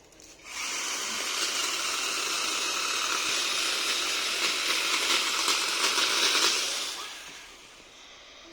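Chainsaw cutting into guava wood: it starts about half a second in, runs steadily with a high, hissing whine for about six seconds, then dies away.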